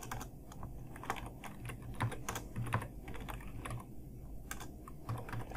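Typing on a computer keyboard: irregular key clicks as code is entered.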